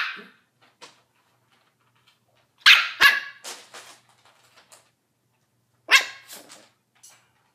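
Yorkshire terrier puppy barking in short, high-pitched yaps: one right at the start, two in quick succession about three seconds in, and one more about six seconds in.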